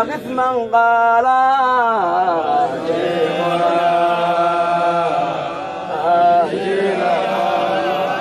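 Chanting of a Sufi dhikr qasida in Arabic: long, drawn-out sung syllables that glide up and down in pitch.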